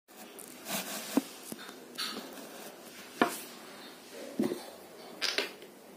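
Scattered handling noises: soft rustles with a few sharp taps or knocks, the sharpest about three seconds in.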